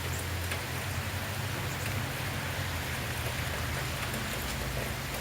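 Steady rain falling, an even hiss with scattered drops, over a low steady rumble.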